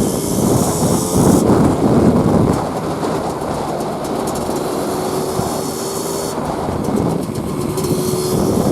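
1988 Kawasaki KMX 200's single-cylinder two-stroke engine running while the bike is ridden, mixed with road and wind noise, louder for the first couple of seconds and then steady.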